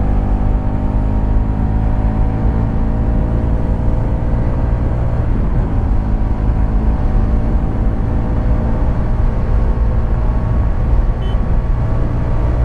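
Hero Karizma XMR's 210 cc single-cylinder engine pulling hard under acceleration on a full-throttle run up toward 100 km/h, its note climbing slowly over a heavy low rumble.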